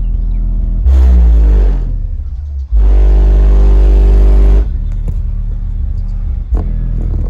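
Car audio subwoofer playing bass-heavy music at high volume. There are two very loud bass hits, about a second in and about three seconds in; the first is a falling bass sweep, and the second is held for nearly two seconds.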